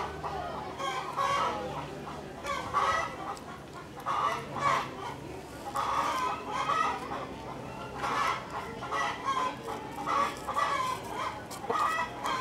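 Chickens clucking in a run of short calls repeated again and again.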